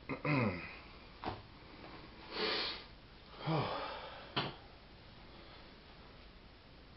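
A person sniffing and breathing noisily through the nose several times in the first half, with two sharp clicks as 1911 pistol parts are handled and set down on a cloth.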